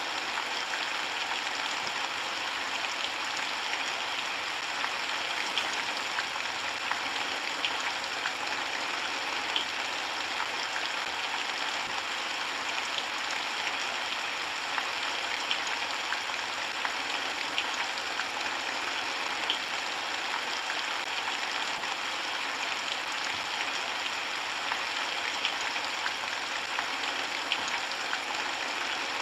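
Steady rainfall, an even hiss with scattered individual drops ticking through it.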